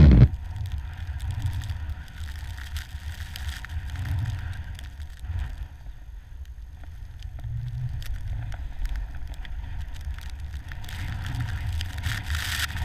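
Snowboard riding through deep powder, heard on a pole-mounted action camera: a low, wavering wind rumble on the microphone with a light hiss of sliding snow, the hiss growing near the end.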